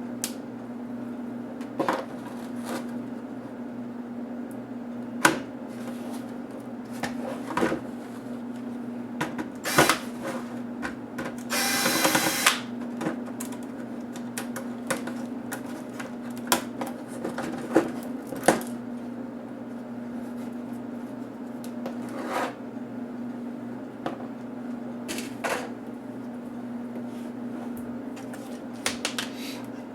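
Clicks, taps and knocks of plastic laptop parts and small tools being handled while the laptop is taken apart, with a scraping rustle lasting about a second around twelve seconds in, over a steady low hum.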